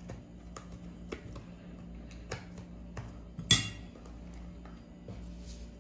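Light clicks and clinks of a plastic salt shaker and a metal spoon against a small glass bowl as salt is shaken in, with one louder, short rattle about three and a half seconds in.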